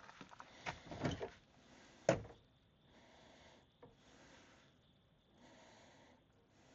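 Footsteps walking, a few soft thumps, then one sharp knock about two seconds in; after that only faint hiss.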